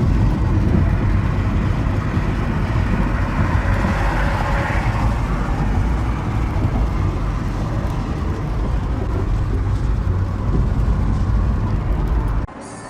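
Steady, loud rumble of a vehicle in motion, with a deep low end and a noisy hiss above it, cutting off abruptly near the end.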